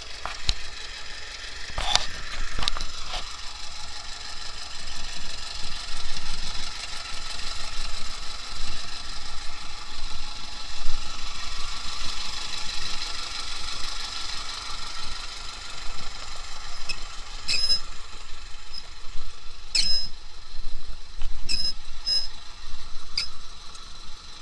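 T-25 tractor's two-cylinder air-cooled diesel engine running steadily, with a few brief sharp clicks in the second half.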